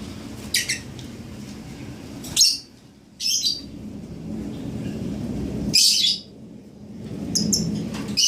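Seven-day-old lovebird chick giving short, high-pitched chirps, about six of them at irregular intervals, over a steady low rumble.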